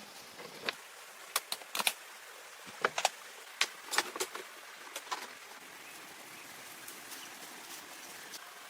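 Steady rush of running water, with a run of sharp, irregular clicks and snaps in the first half that then stop.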